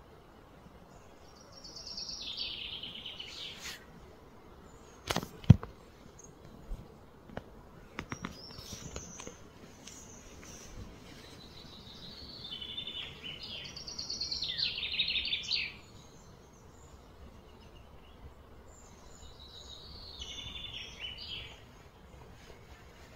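A songbird singing three phrases of quick repeated high notes over a faint outdoor hiss. A single sharp knock about five seconds in, followed by a few faint clicks.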